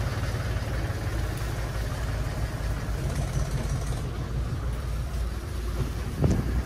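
Motor vehicle engine running steadily while driving, a low even rumble, with a brief thump about six seconds in.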